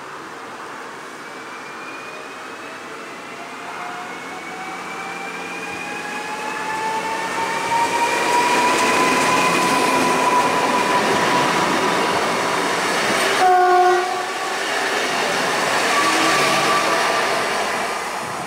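Newag Impuls 31WE-001 electric multiple unit passing along the platform, its motor whine rising in pitch as it comes close. About three-quarters of the way through, it gives one short horn blast, the Rp1 'attention' signal.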